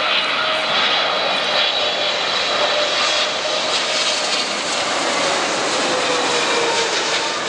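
Etihad Boeing 777 jet engines on final approach as the airliner passes low overhead: a loud, steady rush with a high fan whine. A lower tone falls in pitch about five seconds in as the aircraft moves away.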